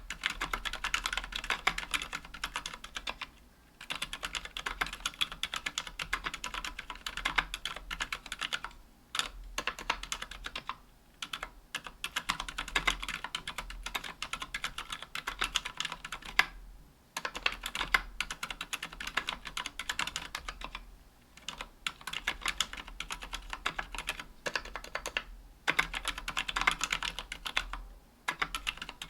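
Fast typing on a 60% aluminium-case mechanical keyboard fitted with Healios silent linear switches and GMK keycaps: a dense run of soft, damped key strokes in bursts of several seconds, with short pauses between them.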